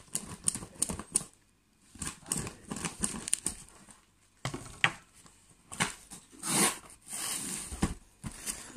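Packing tape being peeled and ripped off a heavily taped cardboard parcel: an irregular string of crackles, rips and rustles, with a few longer tearing sounds in the second half.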